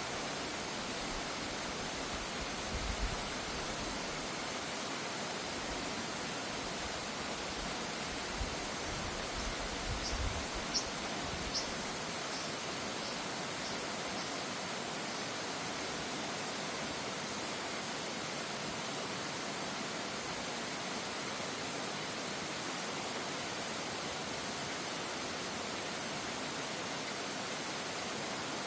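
Mountain stream rushing steadily over rocks, an even hiss. About ten seconds in, a bird gives a quick run of short, high chirps.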